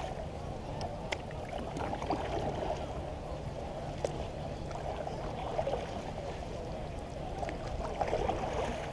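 Water gurgling and lapping against a plastic kayak hull as it is paddled, with a few faint clicks.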